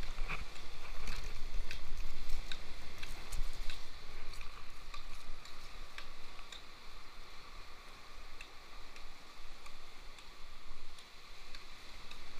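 Irregular sharp ticks and clicks over a steady rush of surf on a rocky shore, with a low rumble in the first few seconds.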